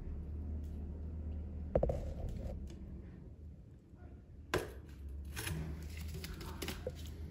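Light handling noises, a couple of short knocks and clicks about two and four and a half seconds in, over a low steady hum.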